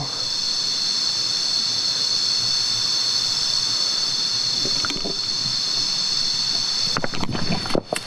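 Insects droning in a steady high-pitched chorus over a steady rushing noise, with a few short rustles and knocks near the end.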